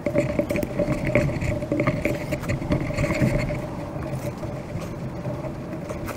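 A steady engine-like hum with a low rumble, under scattered small clicks and rustles of paracord being wrapped around wooden poles for a tripod lashing.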